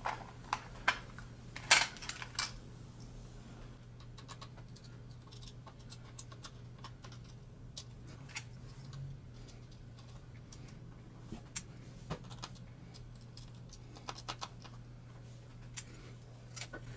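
Scattered light clicks and taps of plastic and small parts being handled on a Lenovo B570 laptop's front bezel while its screw covers are pried off with a plastic knife. The loudest clicks come about two seconds in, with a quick run of clicks around fourteen seconds, over a low steady hum.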